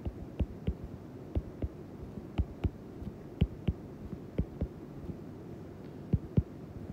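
Stylus tapping and clicking on a tablet screen while handwriting, irregular short clicks often coming in pairs, over a low steady background hum.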